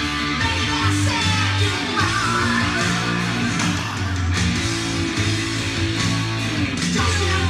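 Hard rock song playing from a vinyl record on a turntable: electric guitar and bass over drums, with a singing voice coming in near the end.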